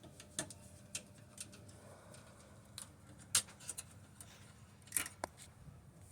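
Light, irregular clicks and taps of a screwdriver and small metal parts being handled against a desktop computer case during disassembly, with two sharper clicks, one just past the middle and one near the end.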